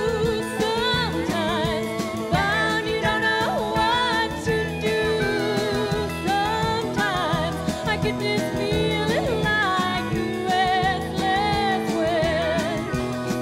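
Country band playing a song live, with a woman singing the lead vocal over the band.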